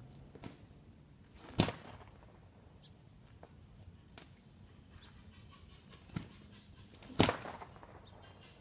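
Cattleman's whip cracking: two loud, sharp cracks about five and a half seconds apart, each preceded by a fainter snap about a second earlier.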